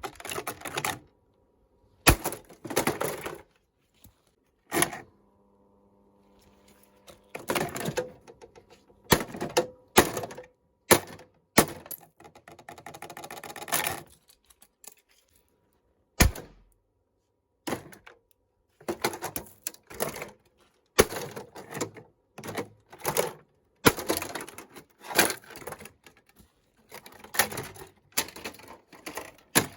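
A ventilation fan being broken apart: irregular knocks, clatters and cracks, some in quick flurries, with a short steady hum about six seconds in.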